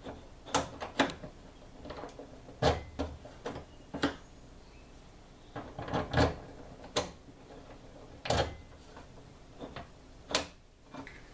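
Tailgate lock and latch mechanism being worked by hand after installing a Pop & Lock: about ten sharp, separate clicks and knocks, spaced irregularly, as the lock and handle are tried.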